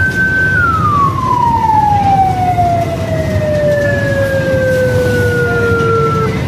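Fire tanker truck's siren holding a steady high note, then winding down in a slow falling glide over several seconds until it cuts off near the end. The truck's engine rumbles underneath.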